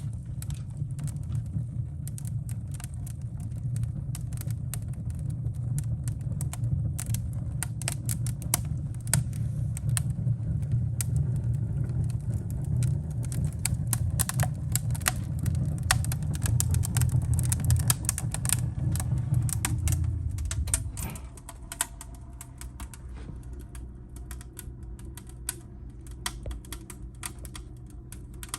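Wood fire burning in a fireplace, crackling and popping with many irregular sharp snaps. Under it runs a low rumble, the loudest part of the sound, which drops away suddenly about two-thirds of the way through while the crackling goes on.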